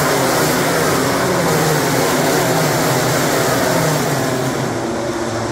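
MotoGP race bikes passing at high revs: several engines blended together, their pitches sliding down as the bikes go by. The sound eases slightly about four seconds in.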